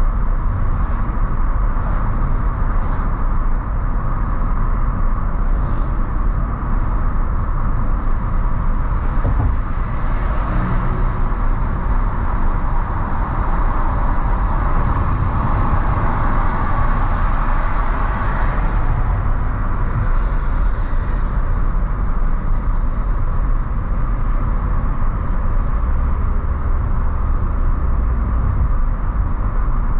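Steady road noise of a car driving on a city highway, engine and tyre hiss without a break, with a swell of hiss as traffic passes about ten seconds in and again about fifteen to eighteen seconds in.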